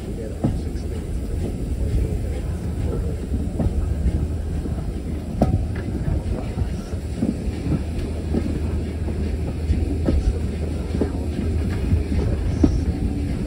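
Heritage railway carriage of a steam-hauled train running along the line, heard from the carriage window. A steady low rumble runs throughout, with irregular clicks and knocks from the wheels on the track.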